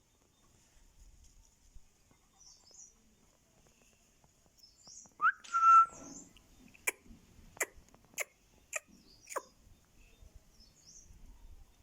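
Ringneck parrot making a short rising whistle and a held whistle about halfway through, then five sharp clicks about every 0.6 s, with faint high chirping in the background.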